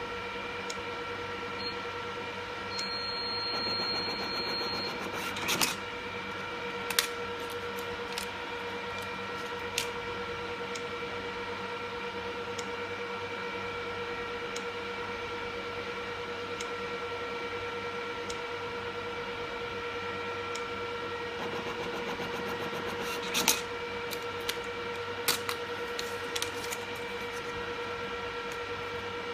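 Touchscreen queue ticket dispenser with its built-in ticket printer: a steady electrical hum with a high whine and scattered light clicks, then a short stretch of printer noise and a cluster of sharp clicks a little past twenty seconds as it prints and cuts a token ticket.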